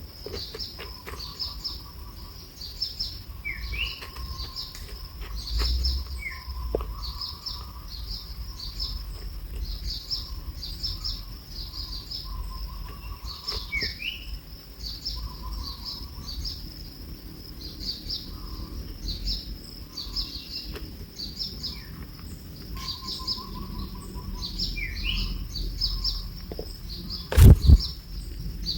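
Birds chirping: rapid, repeated high-pitched cheeps throughout, with a lower warbling call now and then and a few short rising notes. A loud thump near the end.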